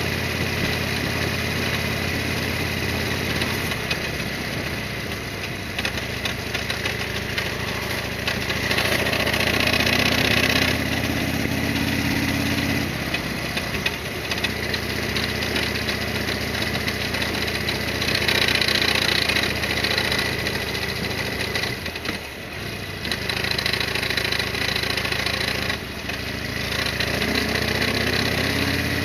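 Harley-Davidson Sportster XL1200R's air-cooled V-twin engine running on the move. Its note shifts in steps several times and rises near the end as it speeds up, with stretches of rushing hiss.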